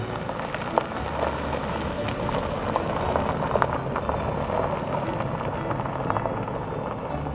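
An SUV driving past on a gravel road, its tyres crunching and popping the loose stones, loudest about halfway through as it passes close, then fading as it moves away. Background music plays underneath.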